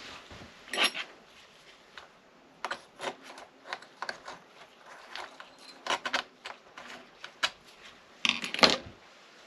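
Small metal parts and hex tools clicking and clinking while a toe-link bolt is fitted to an RC car's aluminum rear hub carrier: a scatter of short ticks, with a louder rattle near the end.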